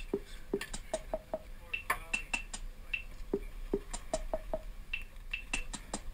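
Irregular light clinks and taps of hard gear being handled, some ringing briefly at a high and a lower pitch, like metal clips and fittings knocking against dive kit.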